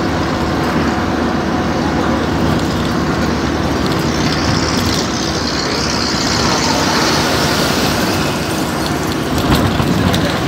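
Steady road noise heard inside a moving vehicle's cabin: engine hum with tyre and wind noise. A brighter hiss swells for a few seconds in the middle.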